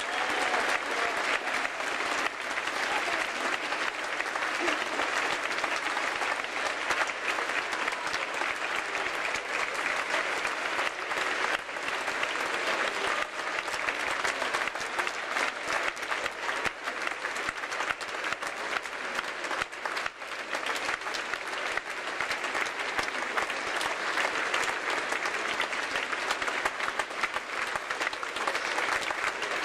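Audience and cast applauding steadily: a dense, continuous sound of many hands clapping, at an even level.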